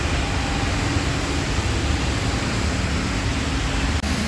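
Steady vehicle noise with a deep low rumble and a faint engine hum, cut short by an abrupt change near the end.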